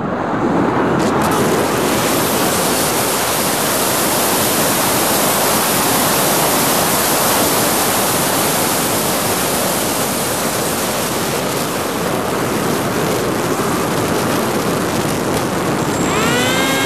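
Steady, loud rush of wind over an FPV quadcopter's onboard camera as it dives from altitude with little throttle. About 16 seconds in, the motors spool up with a rising whine of several tones that levels off as throttle is applied near the ground to pull out of the dive.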